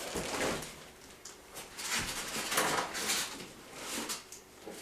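Irregular rustling, sliding and light knocks as parts and packaging are handled and moved about.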